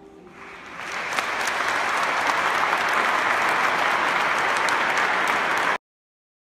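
Audience applauding: the choir's last held chord dies away, then clapping swells up within the first second and carries on loud and steady until it cuts off abruptly near the end.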